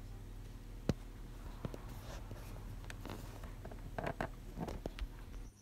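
Light handling sounds: a few short clicks and taps, the sharpest about a second in and several more near the end, over a low steady hum.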